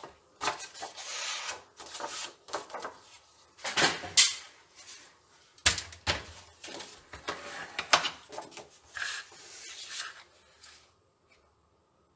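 A paper trimmer and sheets of patterned paper being handled on a cutting mat: an irregular run of knocks, clatter and paper shuffling, the sharpest knock about halfway through, stopping about a second before the end.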